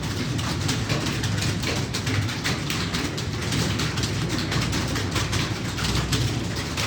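Rapid computer keyboard typing: a dense, continuous run of key clicks over a steady low hum.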